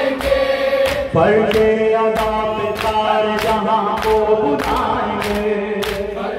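Noha recitation: a male voice sings long held lines through a microphone from about a second in, over a crowd of men chanting. Rhythmic matam, palms striking chests, keeps a steady beat about twice a second.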